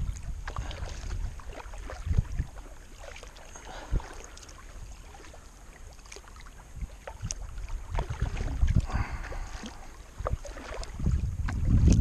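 Kayak paddle splashing in the water with each stroke, while wind rumbles in gusts on the microphone, strongest near the end.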